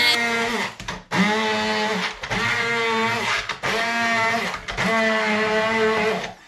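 Electric blender run in short pulses: about five bursts of a second or so each, with brief pauses between them, the motor spinning up at the start of each. It is grinding chillies and seasonings into a spice paste.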